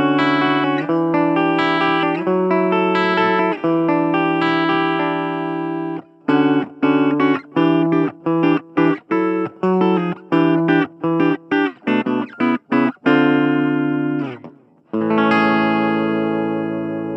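Gibson Les Paul Standard electric guitar played clean through a Blackstar Fly 3 mini amp with its ISF tone control turned to the right. Ringing chords for about six seconds, then a run of short choppy chords, and near the end one chord left to ring out.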